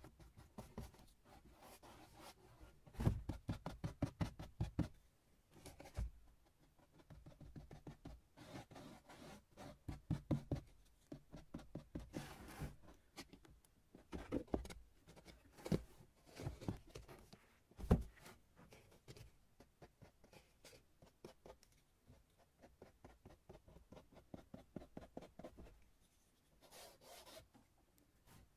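Hand-work on craft materials: runs of quick scratching and rubbing strokes in short bursts, with a few sharp knocks, the loudest near the middle.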